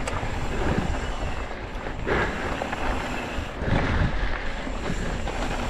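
Mountain bike riding dirt singletrack: wind buffeting the action-camera microphone over the rumble of the tyres on dirt and gravel, with louder swells about two and four seconds in.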